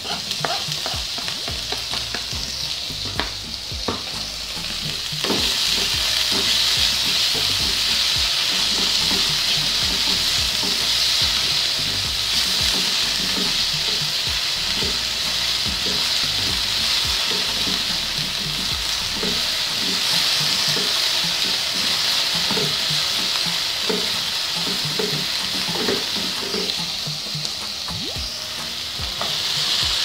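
Chopped spring onion frying in hot oil in a wok: a steady sizzle, with a spatula scraping and knocking against the pan as it is stirred. The sizzle grows louder about five seconds in.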